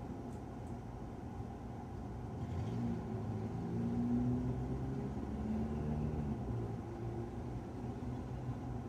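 Loud road-vehicle engine on the street below, a low rumble that swells and changes pitch as it accelerates past, loudest around three to six seconds in, muffled through a closed apartment window.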